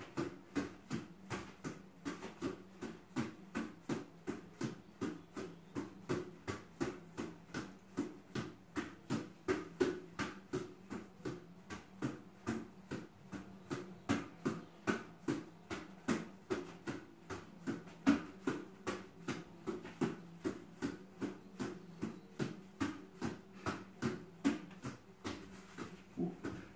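A football slapping into the hands as it is passed rapidly around the waist, hand to hand: an even rhythm of quiet slaps, about three a second.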